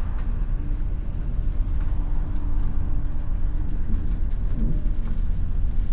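Passenger ferry under way at sea: a steady low rumble from the ship's engines with a faint steady hum over it.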